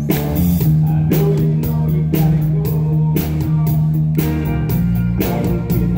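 A live country band plays, led by strummed acoustic guitar over bass, with a steady beat of about two strokes a second.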